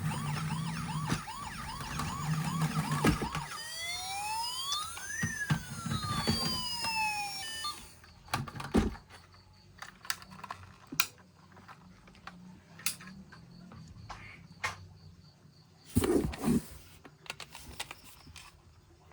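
Electronic siren from a battery-powered toy emergency vehicle: a fast repeating rising yelp for the first few seconds, then a slower wail sweeping up and down, stopping about eight seconds in. After that come scattered clicks and knocks, with a louder cluster of knocks near the end.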